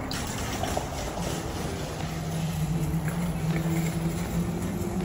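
A vehicle engine running steadily: a low, even hum with a steady tone that sets in about a second in.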